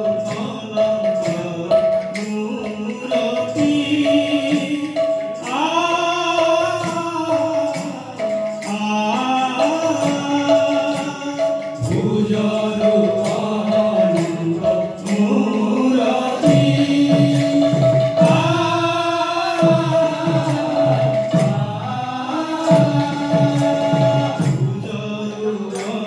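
Kirtan music: voices singing a devotional chant over a held instrumental note, with frequent strikes of jingling hand percussion.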